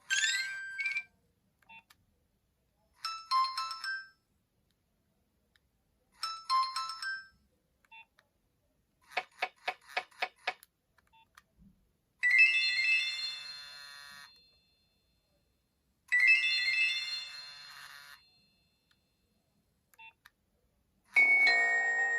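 Nokia 2600 mobile phone playing a series of short built-in alert tones one after another, each a second or two long with silence between. They run: a quick rising sweep, two short few-note jingles, a rapid run of about eight beeps, then chimes that ring out and fade, the last starting near the end.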